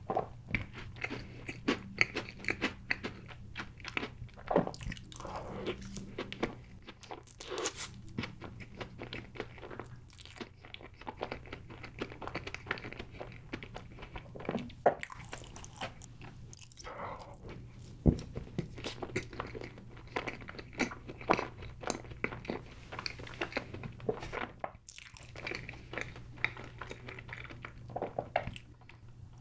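Close-miked chewing of chocolate layer cake: many short, irregular wet smacks and clicks of the mouth. Near the end, sipping chocolate milk through a straw.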